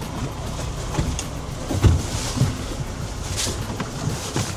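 Boat's outboard motor running at low speed, a steady rumble under wind and water noise, with a couple of dull knocks about a second and two seconds in.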